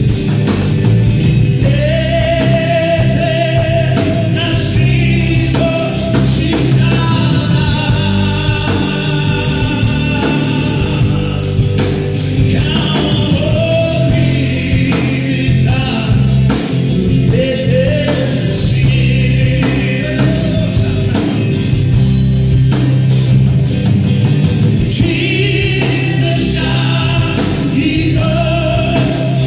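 Live gospel worship song played loud through a PA: a male lead singer with other singers, backed by electric guitars and drums.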